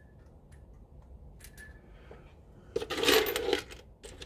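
Small metal washers clicking as they are handled, with a loud jingling rattle of loose hardware lasting under a second about three seconds in.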